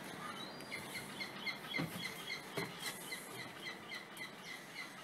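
A small bird chirping rapidly and repeatedly, about four short chirps a second, over a faint steady background hum. Two soft knocks about two seconds in, like footsteps.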